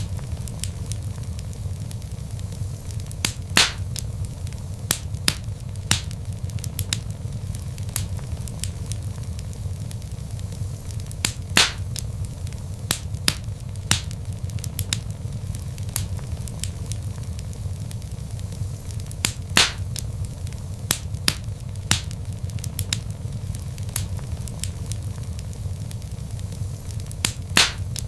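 Wood fire burning in a fireplace: logs crackling with frequent sharp pops over a steady low rumble of the flames. A few louder snaps stand out about every eight seconds.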